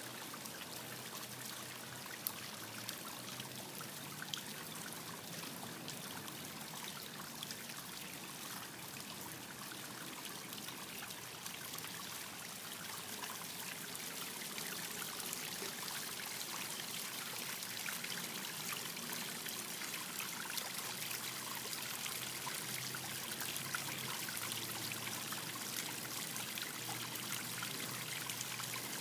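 Water trickling steadily in a small rock-edged garden pond water feature, a little louder from about halfway on.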